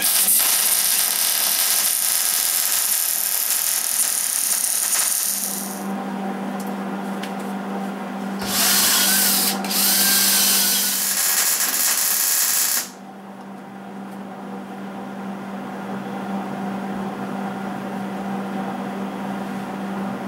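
MIG welding arc on the truck frame's steel spacer tubes, from a 110-volt Hobart welder: a hissing run of about five seconds, then after a pause two more runs of about one and three seconds. A steady low hum fills the gaps between welds.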